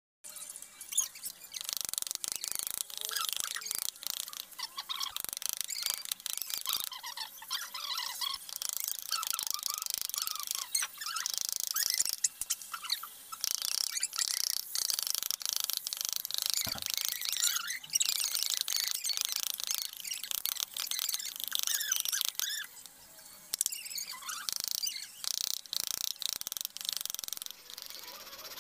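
Hand chisel paring and scraping a teak block in short cutting strokes, with small clicks and taps of the blade. Birds chirp over it.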